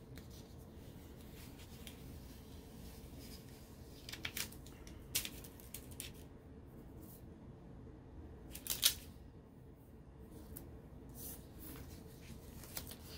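Paper planner pages and a clear sticker being handled by hand: scattered soft paper rustles and light crisp crinkles. The sharpest comes about nine seconds in.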